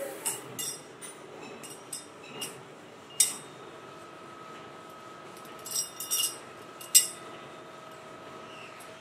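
Steel sprocket blanks clinking against one another as a stack of them is handled, sharp clinks at irregular intervals. A steady machine hum sets in underneath a few seconds in.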